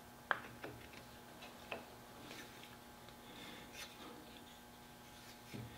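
Sharp clicks and light knocks as a shotgun's wooden forend with its metal forend iron is handled and turned over on a padded bench, the loudest in the first two seconds, followed by softer ticks and a soft thump near the end.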